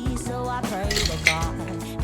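Background pop music with a melodic line over steady notes, and a few light clinks of kitchenware about a second in.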